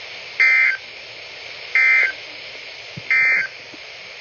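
Three short bursts of raspy two-tone digital data warble, about 1.3 seconds apart, over steady radio hiss: the EAS/SAME End of Message (EOM) code from a NOAA Weather Radio transmitter, marking the end of the tornado warning broadcast.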